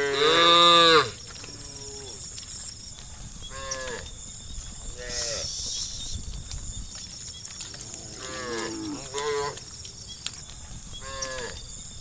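Cows in a herd mooing: one loud, long moo in the first second, then several shorter, fainter moos from other cows through the rest.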